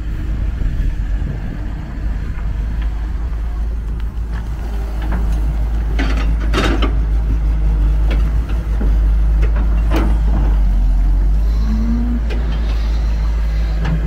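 Caterpillar 320C hydraulic excavator's diesel engine running with a deep, steady rumble while it digs soil, getting louder about halfway through, with a few short sharp clanks in the middle.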